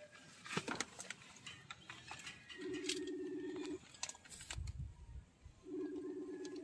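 A low, steady buzz sounds twice, each lasting a little over a second and about two seconds apart. Light handling clicks come before it and a soft thump falls between the two buzzes.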